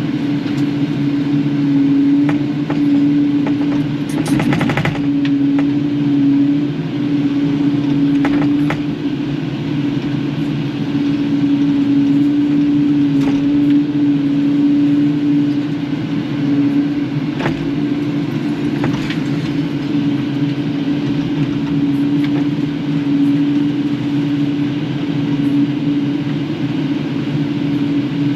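Kubota KX080-4 excavator's diesel engine running steadily at working speed, with a few short knocks and clanks. The loudest is a brief rattling clatter about four seconds in.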